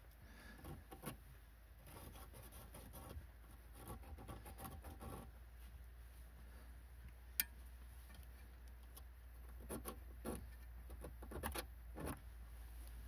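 Faint handling noises of a metal brake pipe being worked into place by hand under a car: scattered small rubs and clicks, with one sharper tick about seven seconds in and a few more clicks near the end.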